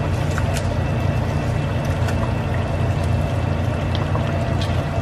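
Ribeye steaks frying and simmering in liquid in a pan on a stovetop: a steady sizzle and bubble with a few scattered pops, over a steady low hum.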